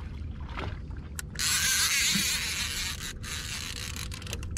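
Fishing reel drag running out for about a second and a half as a hooked kingfish makes another run against a full drag, over a steady low rumble from the boat. A few short clicks come near the end.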